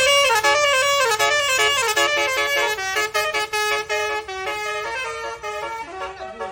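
Basuri musical vehicle horn playing a tune: a string of loud, overlapping horn notes that slide down in pitch over the first two seconds, then step from note to note and grow gradually quieter.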